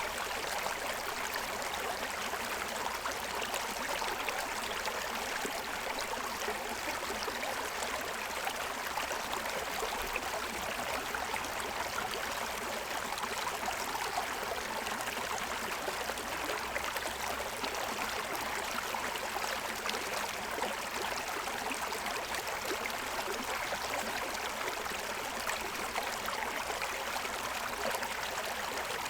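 Forest stream running over the stones of its bed, a steady rushing and babbling of water.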